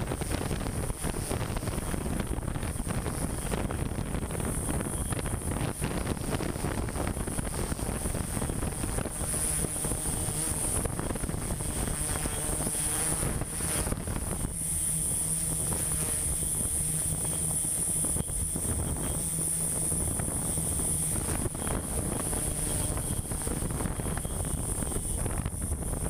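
Multirotor drone's propellers and motors running steadily, picked up by the drone's own camera microphone: a constant high whine over a rushing noise, with a low hum.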